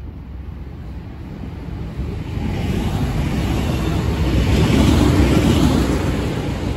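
Enshu Railway four-car electric train (sets 2002F and 1001F coupled) passing close by, its noise building from about two seconds in to a peak about five seconds in, then easing as the cars go by.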